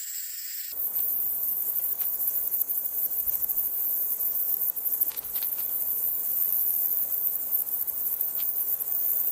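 A dense, continuous high-pitched chorus of rainforest insects. A single steady high trill cuts over under a second in to the fuller chorus.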